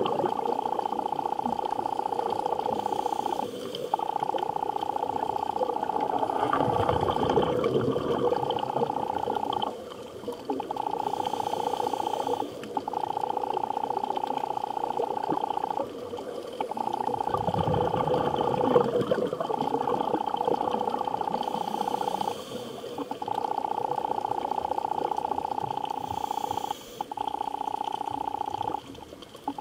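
Underwater sound picked up by a diver's camera: a steady mid-pitched hum, broken briefly every three to four seconds, over low water gurgling and bubbling.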